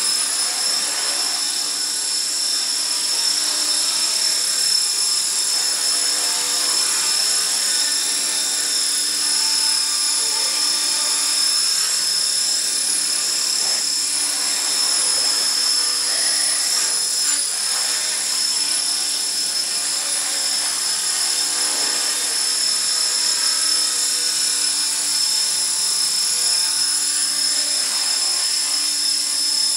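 HK450 450-class electric RC helicopter hovering: a steady high-pitched whine from its motor and spinning rotor head that holds an even pitch throughout.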